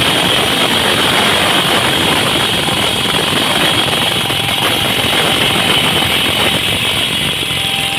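Road texturing machine's engine running steadily under a continuous high whine.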